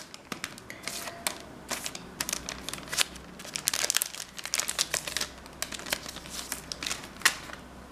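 Clear plastic packaging crinkling and crackling in the hands as a pack of art cards is opened and the cards are pulled out. It comes as irregular clusters of crackles, with one sharper snap near the end.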